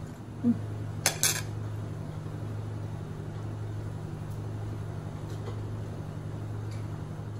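Metal fork and spoon clinking against dishes, two sharp clinks about a second in, followed by a few faint ticks over a steady low hum.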